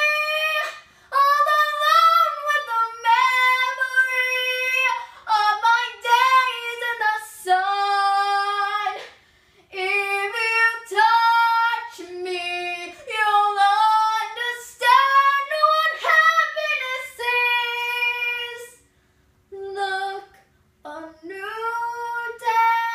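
A woman singing solo and unaccompanied, holding long notes in a fairly high range, with short pauses between phrases.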